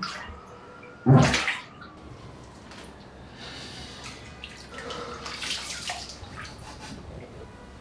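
Water splashing at a bathroom sink as a man scoops it onto his face with his hands. The loudest splash comes about a second in, with more splashing around five to six seconds in.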